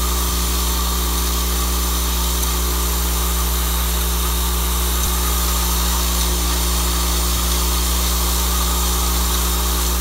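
Vibratory bowl feeder running: a steady low hum from its vibrating drive, with an even high rattle of small tubes shaking along the bowl's spiral track.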